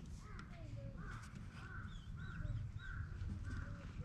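A bird calling in a quick series of short, evenly spaced calls, about two a second, with a few faint higher chirps, over a steady low rumble.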